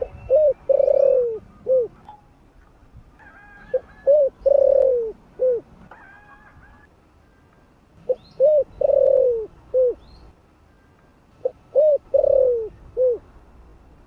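Spotted dove cooing its song four times, about every three and a half seconds: each phrase a couple of short coos, a longer falling coo and a short closing coo. Faint chirps of smaller birds sound between the phrases.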